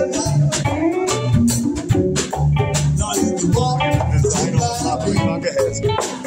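Live band playing electric guitar, bass guitar, drum kit and congas, with a conga struck by hand close by, with many quick drum hits over the bass line.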